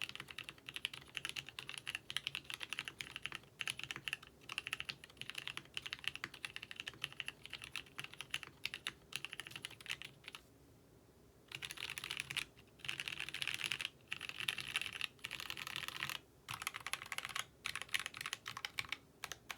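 Fast typing on a custom ABKO AR87 mechanical keyboard with lubed Gateron Red linear switches, GMK doubleshot keycaps, an aluminium case and plate, dampened with cotton and tape inside. Steady runs of keystrokes broken by short pauses, one about a second long near the middle.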